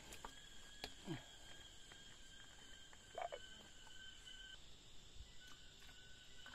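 Near silence with a faint, steady, high insect drone that drops out for about a second past the middle, broken by a few soft clicks and knocks.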